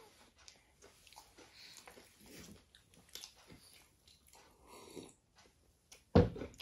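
Faint biting and chewing of a crispy aloo tikki burger being eaten fast. About six seconds in there is one short, loud thump.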